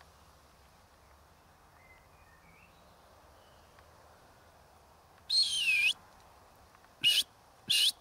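Three loud, high whistle-like calls, each dipping and then rising in pitch: a longer one about five seconds in, then two short ones near the end. Faint chirps come a couple of seconds in.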